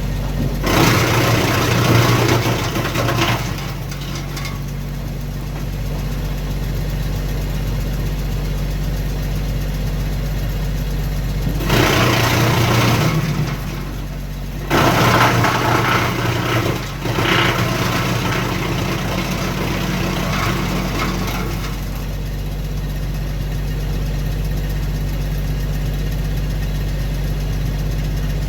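Kioti CK2610 diesel tractor driving a Titan BX42S three-point PTO wood chipper: a steady engine hum, broken by three louder, rougher stretches about a second in, at about twelve seconds, and from fifteen to twenty-two seconds, as branches are fed through and chipped.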